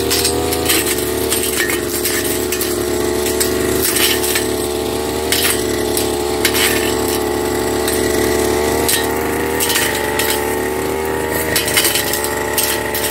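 Firman FGB389 backpack brush cutter's engine running at high speed, its pitch dipping slightly now and then as the blade bites. Sharp clicks and clinks come over it as the spinning blade strikes woody stems and saplings.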